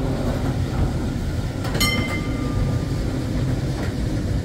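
Vintage tram running on rails with a steady low rumble. About two seconds in, a single metallic ding rings out and fades over about a second.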